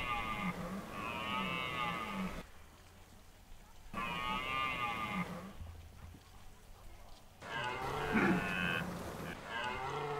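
Red deer stag roaring during the rut: a series of long, deep roars, four in all, each a couple of seconds long with short gaps between.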